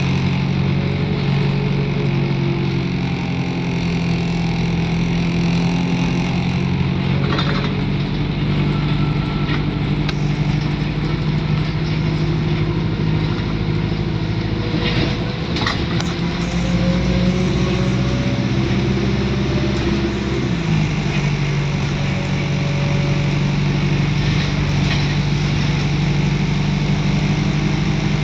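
Diesel engine of an ADL Enviro400 double-decker bus running steadily; its pitch drops and climbs back about twenty seconds in.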